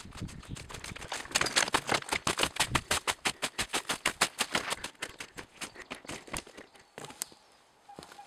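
Footsteps crunching through snow: a fast, even run of crisp crunches that fades out about six and a half seconds in, followed by a few separate clicks.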